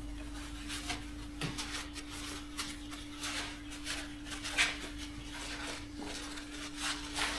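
Faint rag wiping and light clicks of a lapped valve and cylinder head being handled and cleaned of lapping compound, over a steady low hum.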